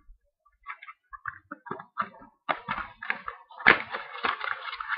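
Trading card mini boxes being opened by hand: scattered small taps and crinkles at first, then denser rustling and tearing of the cardboard and wrapping from about halfway, with one sharper snap a little after that.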